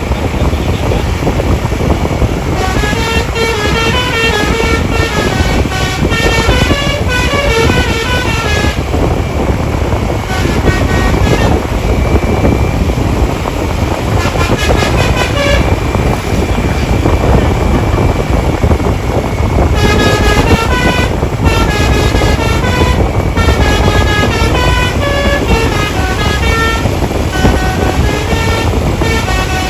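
Multi-tone telolet musical horn on a tour bus playing rapid stepping melodies in three runs, with a long lull in the middle, over a steady low rumble.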